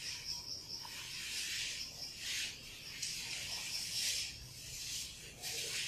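A chalkboard duster wiping across a blackboard in several long rubbing strokes, over the steady high chirring of insects.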